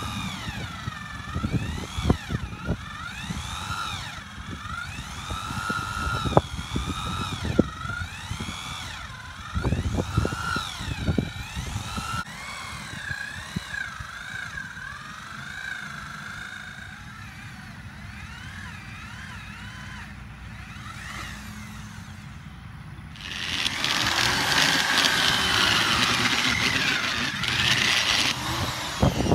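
Power drill turning a soil auger down into the ground, its motor whine rising and falling with the load, with scattered knocks. About 23 seconds in it runs up hard and gets much louder.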